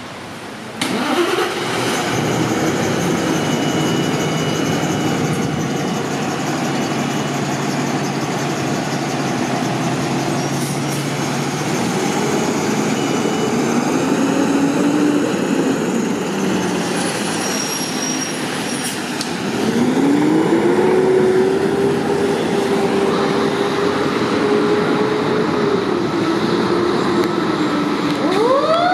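A 2014 Pierce Quantum fire engine's diesel engine starting about a second in, then running and revving as the rig pulls out. Near the end its Federal Q2B mechanical siren begins to wind up in a rising wail.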